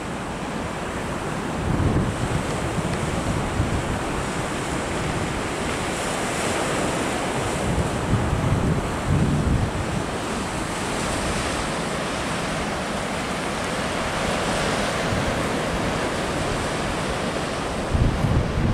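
Surf and choppy sea washing steadily, with wind gusting across the microphone in low rumbles a few times.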